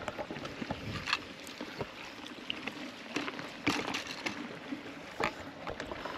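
Sea water sloshing and lapping steadily, with a few sharp knocks or clatters scattered through it; the loudest comes about halfway through.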